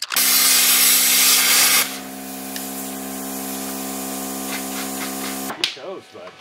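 Gas torch flame burning at a truck's rusted upper shock mount. It opens with a loud rush of hiss for about two seconds, then settles to a steadier hissing hum that cuts off about five and a half seconds in.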